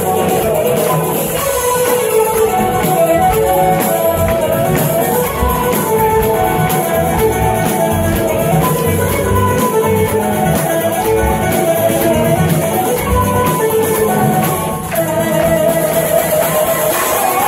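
Live Scottish folk band playing a fast, loud instrumental tune: fiddles, banjo and whistles carrying the melody over drums. The sound briefly dips in loudness about 15 seconds in.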